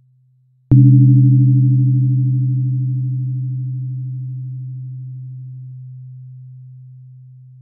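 A 128 Hz tuning fork struck once, a little under a second in, with a brief bright clang at the strike, then a low pure hum that slowly and evenly fades. The ring of the previous strike is still dying away before it.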